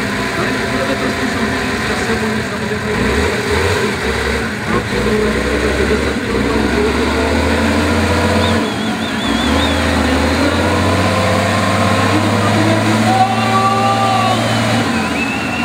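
Off-road trial truck's diesel engine working hard under load, its note rising and falling with the throttle as it claws through a dirt gully, then pulling steadily in the later part; the heavy throttle shows as black exhaust smoke.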